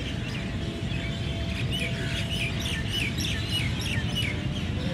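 Outdoor ambience of birds chirping over a steady low rumble. About two seconds in comes a quick run of some eight short chirps, each falling in pitch.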